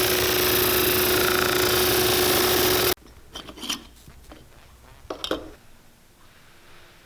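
A power sanding wheel grinding the leather heel stack and sole edge of a resoled shoe: a loud, steady rasping over a motor hum, cut off abruptly about three seconds in. Then a few light knocks as the shoe is handled.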